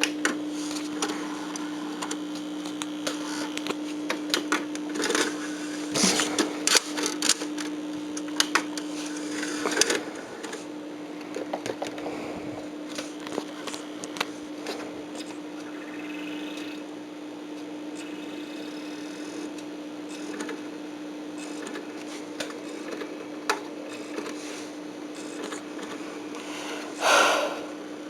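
Steady electrical hum from powered-up audio equipment, with scattered clicks and short clattery handling noises.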